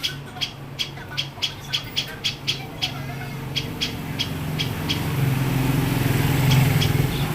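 A songbird giving short, sharp chip calls in a quick series of about four a second, with a short break partway, the calls stopping about five seconds in. A passing vehicle's low engine hum swells near the end.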